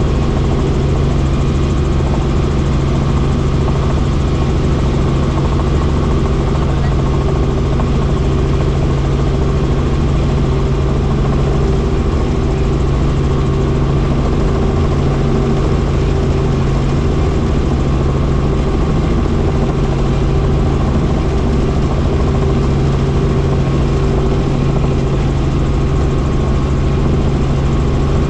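Helicopter running in flight: a loud, steady drone with a constant low hum.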